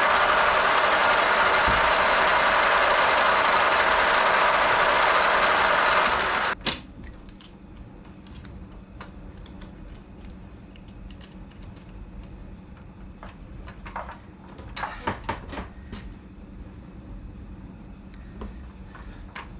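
A machine tool running with a loud steady hum, switched off about six seconds in. After it stops come scattered light metal clicks and clanks, a few louder knocks near the three-quarter mark.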